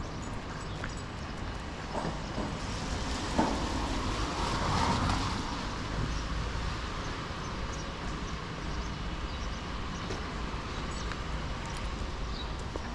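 Street traffic, with one vehicle passing that swells up and fades about four to six seconds in, over wind buffeting the microphone. A couple of sharp clicks come early on.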